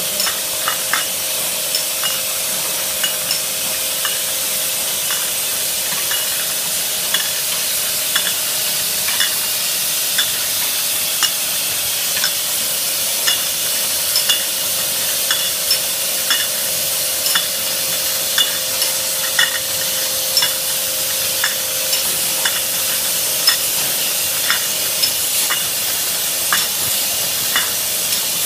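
Beer bottling line running: a steady hiss with glass bottles clinking in the machine's starwheels and guides about once or twice a second, over a faint steady hum.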